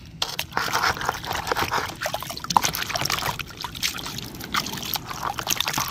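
Water sloshing and trickling in a plastic bowl as a hand dunks and swishes a toy action figure through it, with irregular small splashes.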